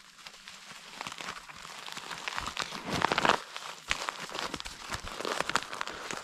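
Swamp paperbark (Melaleuca rhaphiophylla) bark being folded and pressed by hand into a wrapping, its papery layers crinkling and crackling in quick irregular clicks, loudest about halfway through.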